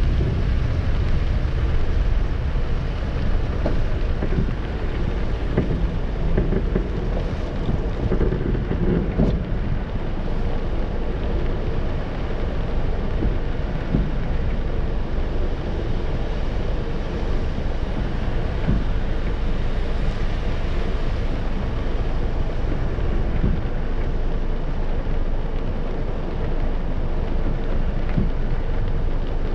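Steady rain and road noise heard inside a car: rain on the windscreen and body over a low rumble of the car and traffic, with a few faint ticks. The rumble is heavier for the first several seconds while the car rolls forward, then settles as it stands in a queue.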